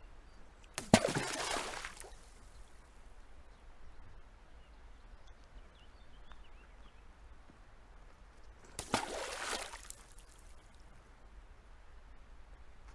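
Two stones thrown into a pond, each landing with a sharp plop followed by about a second of splashing. The first lands about a second in and the second some eight seconds later, with only faint water ambience between them.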